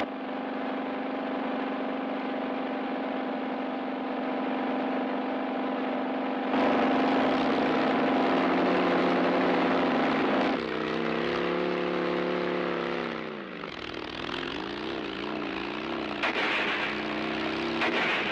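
Motorcycle engine running as it is ridden with two aboard, a steady hum that dips in pitch and climbs again about halfway through, then wavers up and down.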